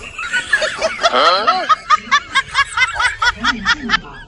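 Snickering laughter: a quick run of short, high 'heh' sounds, about five a second, starting about a second and a half in.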